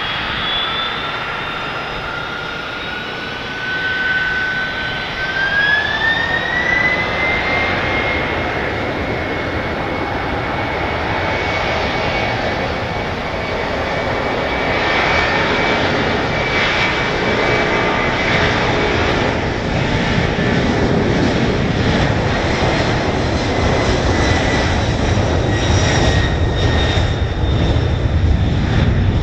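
A Boeing 767-300 freighter's two turbofan engines spool up to takeoff power. Their whine rises in pitch about five seconds in, then holds steady while a deep roar builds as the jet accelerates down the runway.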